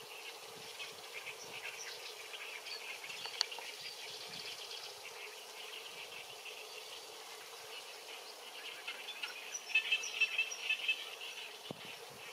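Rapid, high chirping and trilling of small wild creatures, grouped in bursts, with a busier stretch about ten seconds in, over a steady faint hum.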